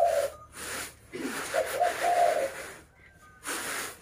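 Unhulled rice grain rustling and rattling on round woven bamboo winnowing trays as it is tossed, in repeated bursts with short pauses between them. A short low pitched sound comes about halfway through.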